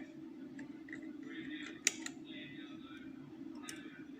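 Lever-lock picking tools working inside a five-lever curtained lock: scraping metal with sharp clicks, the loudest just under two seconds in and another near the end, over a steady low hum.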